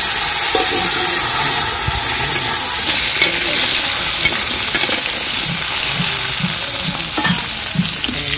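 Chunks of potato and taro sizzling loudly in hot oil in a metal karahi, freshly tipped in, while a metal spatula stirs them.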